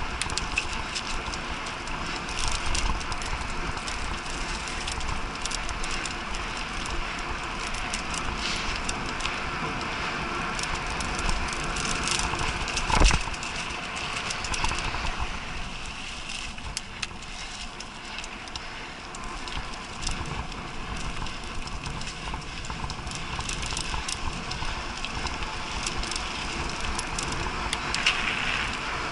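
Mountain bike ridden fast over a dirt forest trail: steady tyre noise with constant rattling and clicking over the bumps, and one hard knock about halfway through.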